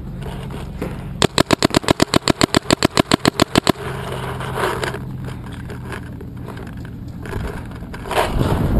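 Shocker RSX electronic paintball marker firing a rapid string of about two dozen shots, about ten a second, starting about a second in and lasting some two and a half seconds.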